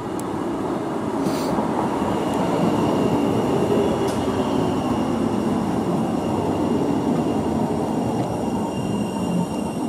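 Stadler Class 399 tram-train running past at close range, its wheels on the rails making a dense rumble that swells over the first few seconds and then holds. A thin, steady high whine sounds over it from about two seconds in, and a brief click comes at about one second.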